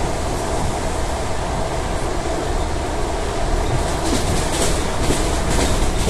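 ED4M electric multiple unit running along the line with a steady rumble of wheels on rails, and a clatter of wheels over rail joints in the second half.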